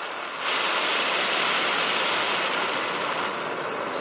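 Brazing torch flame hissing steadily as it heats a copper refrigerant-line joint, getting louder about half a second in.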